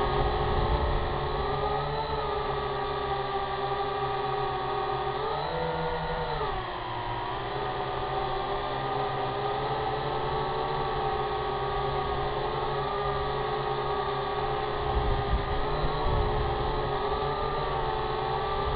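Syma X8HG quadcopter in flight, its motors and propellers whining steadily with a wavering pitch that climbs briefly about five seconds in and then settles back, over a low rumbling noise.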